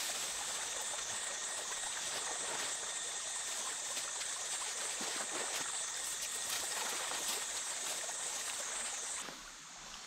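Flowing river water rushing steadily, cutting off abruptly about nine seconds in to a quieter background.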